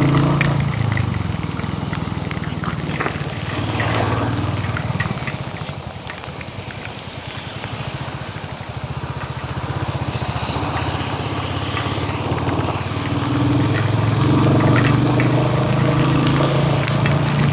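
Royal Enfield Hunter 350's single-cylinder engine running as the motorcycle is ridden. The engine drops to a slow, low-revving thump around the middle, then picks up again.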